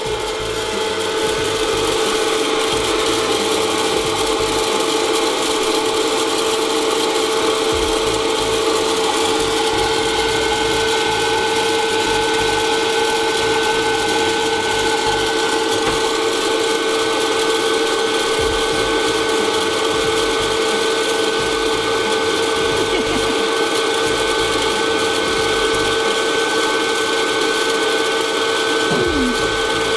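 Hot-air popcorn popper running: its fan motor gives a steady whine and hum, with a dry mechanical rattle from the kernels being blown around the heating chamber before they pop.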